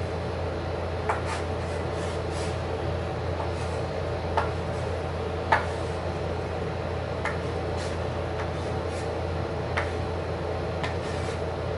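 Scattered light taps and knocks of a marker and small objects on a wooden tabletop during drawing, over a steady low hum. The sharpest knock comes about five and a half seconds in.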